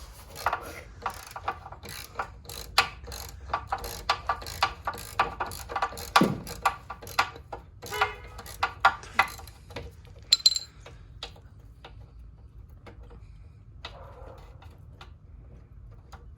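Hand tools clicking and clanking on the automatic transmission cooler fittings, undoing the cooler. It is an irregular run of sharp metal clicks, a few a second, for about ten seconds, then only a few scattered clicks.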